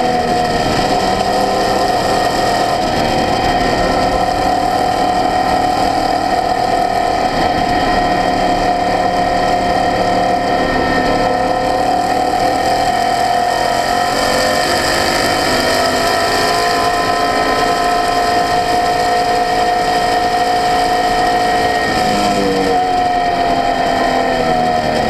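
Open-cockpit race car's engine pulling hard at track speed, heard from the onboard camera. The note rises briefly at the start, holds steady for most of the run, then falls in pitch near the end as the car slows for a corner.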